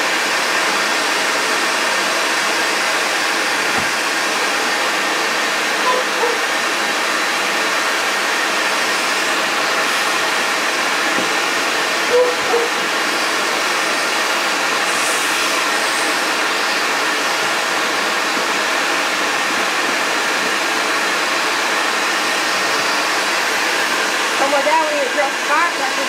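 A bee vacuum running steadily, a constant rushing motor noise with a faint hum.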